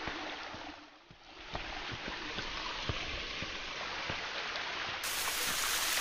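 Water running and splashing over rock shelves in a small waterfall cascade: a steady rushing hiss with small splashes. It dips briefly about a second in, and about five seconds in it turns brighter and louder, a different fall of water.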